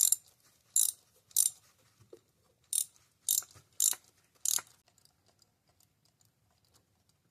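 Socket ratchet clicking in about seven short bursts, one burst per back-stroke, while a spark plug is turned out of the cylinder head. The bursts stop about five seconds in.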